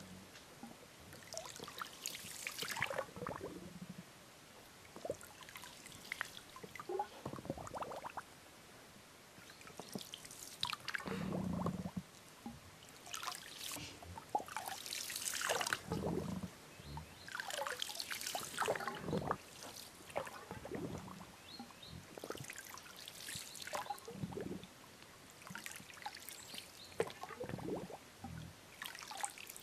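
Water trickling and splashing in small irregular bursts, a second or two apart.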